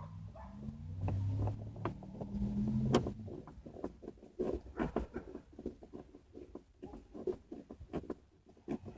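A low steady hum for the first three seconds, then a run of quick irregular clicks and taps from hands handling screws and plastic door-trim pieces.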